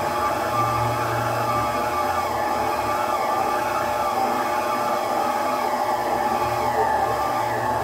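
Electric stand mixer's motor running steadily, its beater turning through pastel dough in a steel bowl, with a steady whine and a low hum.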